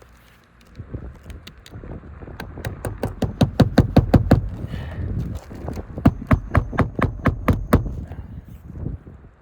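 Hammer driving roofing nails through an asphalt shingle into the roof deck: two quick runs of sharp strikes, about five a second, each lasting about two seconds, with lighter taps before and between.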